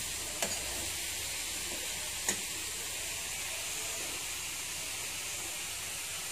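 Shredded purple cabbage and coconut sizzling in a frying pan, a steady hiss, with two light taps about half a second and two seconds in.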